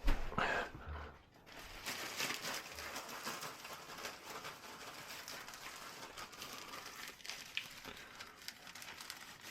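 Steady rustling and crinkling, dense with small ticks, setting in about a second and a half in after a brief louder sound at the start.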